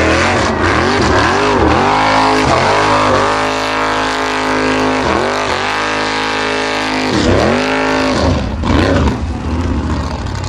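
Formula Offroad buggy's engine revving hard as it climbs a steep dirt hill under heavy load. The revs surge and dip several times and hold high for a few seconds at a stretch, then drop back about nine seconds in.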